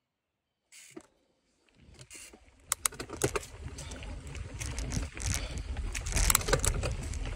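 Mountain bike riding down a rough dirt trail: tyres rumbling over the ground while the chain and frame rattle and click over bumps. It starts after about two seconds of silence and grows louder.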